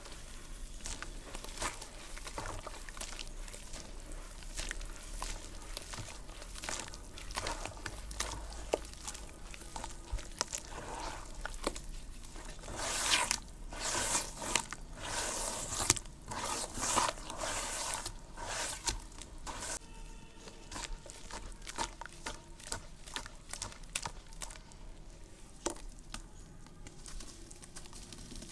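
Clumps of soft, dusty red dirt crumbling and crunching, with many small crackles. The crunching is busiest and loudest about halfway through, then thins out.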